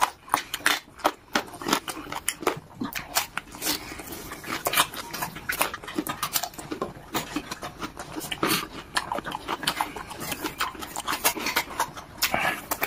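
Close-up eating sounds: wet chewing, lip-smacking and sucking with many short irregular crunches and clicks, as a man bites into raw red onion and gnaws beef rib pieces with cartilage.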